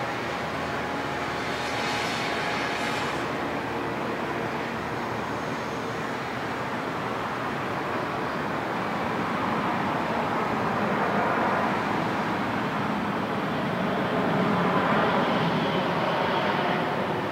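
Jet noise from a Boeing 787-9 landing and rolling out on the runway: a steady rush that grows louder in the second half.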